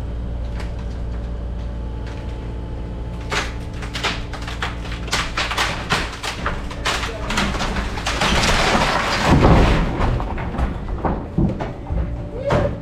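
A machine engine runs steadily throughout. From about three seconds in, sharp cracks and knocks of breaking structure build up, peak in a heavy crash with a low rumble around nine seconds in as part of the house comes down, and end in a few scattered knocks of falling debris.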